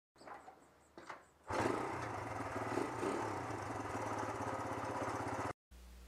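Two or three short clicks, then a small petrol engine starts and runs steadily with an even firing rhythm, cutting off abruptly after about four seconds.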